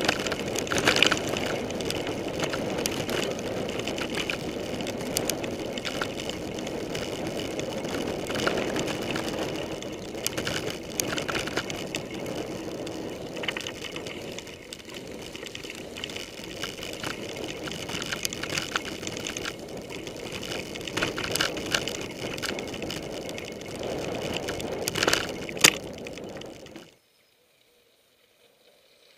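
Mountain bike riding fast over a rough forest dirt trail, heard through a handlebar-mounted camera: steady tyre and trail noise with frequent rattles and knocks from bumps. It cuts off suddenly near the end.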